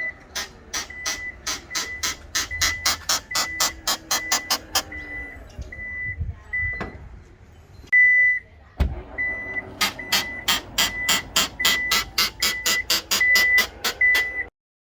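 Toyota Fortuner tailgate making a rapid, even clicking, about four to five clicks a second, over a warning buzzer beeping about twice a second: the faulty tailgate noise. The clicking stops for a few seconds, with one long beep and a single heavy thud about nine seconds in, then starts again with the beeping.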